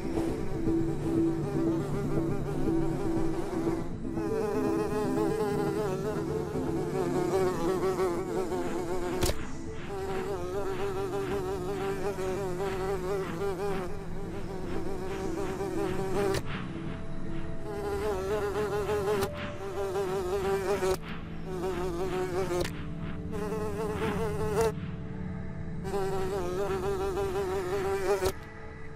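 Small wings buzzing and humming in flight, the pitch wavering up and down, in a string of short bits that start and stop every second or few seconds.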